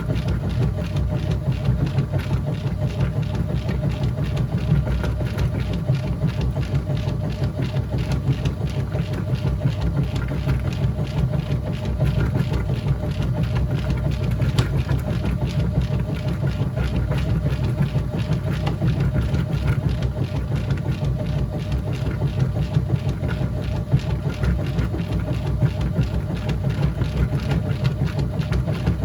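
Whirlpool top-load washing machine running mid-cycle: a steady low motor hum that does not change.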